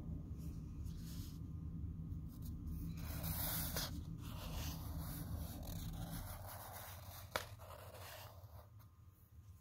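Fine-point felt-tip marker writing on lined notebook paper: scratchy strokes, the longest lasting about three seconds, then circling strokes and one sharp tap of the tip. A low steady hum runs underneath and stops about six seconds in.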